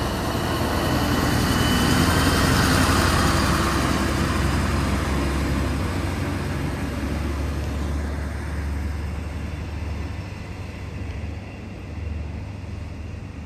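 Diesel railcar pulling away: a low engine drone with a broad rumble, loudest a couple of seconds in, then slowly fading as it moves off.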